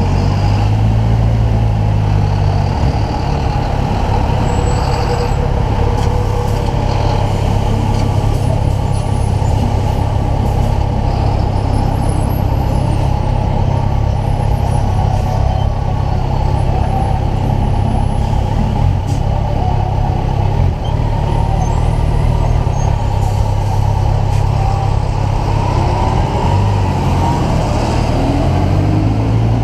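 Kawasaki Ninja 1000's inline-four engine running at a steady cruise on the move, under a constant rush of wind and road noise. The engine note drops a little near the start and climbs again near the end.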